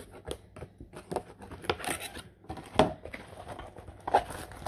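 Clear plastic packaging tube and the film-covered rolled canvas inside it crinkling and rustling as the canvas is slid out and handled. The sound comes in irregular bursts with light clicks, the loudest crackle a little past halfway.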